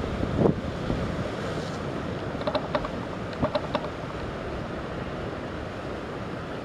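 Wind buffeting the microphone over choppy harbour water lapping, a steady rough rush. A few short, faint sounds pass about two and a half to three and a half seconds in.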